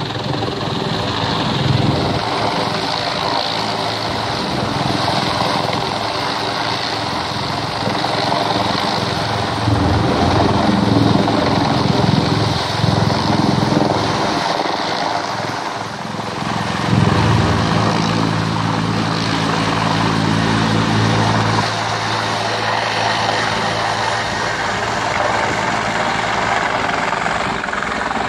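Rescue helicopter's rotor and turbine running overhead as it hovers, a steady drone with a low rotor beat that swells louder a few times.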